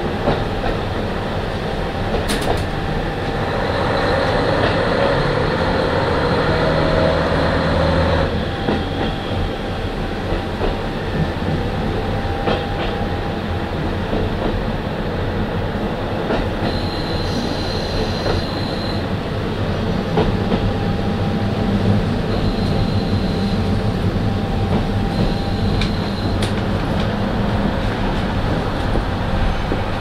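Running sound inside a KiHa 40 diesel railcar as it pulls into a station: steady rumble of the diesel and the wheels on the rails, with a few brief high squeals in the second half.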